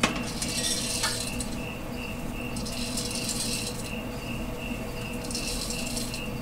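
Wood smoking pellets rattling in three bursts as they are handled and poured at a pellet smoker's hopper. Crickets chirp steadily behind.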